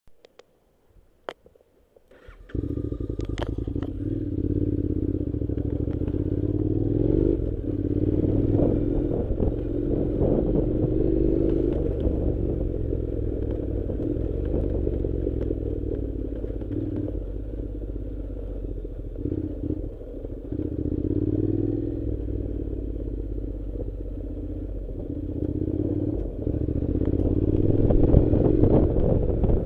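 Honda NC700's 670 cc parallel-twin engine running as the motorcycle is ridden, rising and falling in pitch with the throttle. It begins suddenly about two and a half seconds in, after a few faint clicks.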